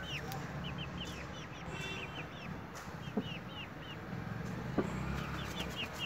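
Chickens in a coop making short, high chirping calls over and over, with two sharp taps about three and five seconds in.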